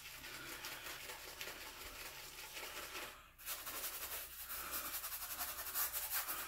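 Boar-bristle shaving brush scrubbing: first loading lather from a shaving soap puck, then, after a brief gap about three seconds in, lathering the scalp. It makes a soft, rapid rustling scratch.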